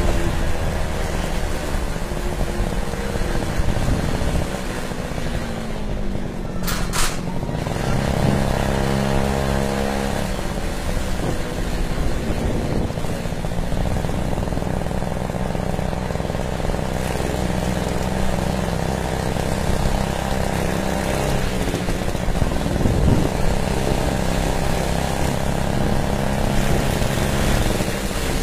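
Small gas engine of a stand-up scooter running under way, its pitch rising and falling with the throttle. A short sharp noise comes about seven seconds in.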